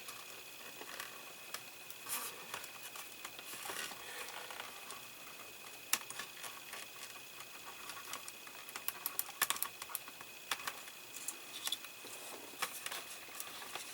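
Light clicks and rustles of a miniature plastic cable tie being threaded and pulled tight on a model-kit part, with one sharper click about six seconds in and a quick run of ticks around nine to ten seconds in.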